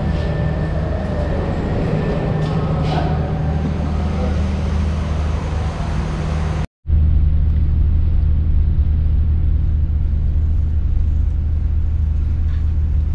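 Diesel train engine idling, a steady low hum. About seven seconds in the sound breaks off for an instant and then resumes as the same steady idling hum, heard from inside a carriage standing at the platform.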